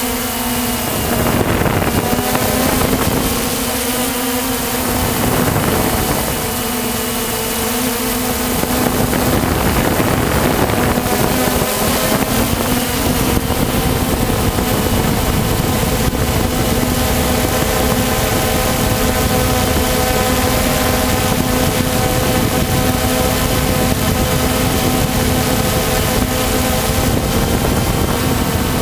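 Walkera Tali H500 multirotor's electric motors and propellers humming steadily in flight, heard from the onboard camera, with some wind on the microphone. The sound swells and shifts pitch a few times in the first several seconds, then holds steady.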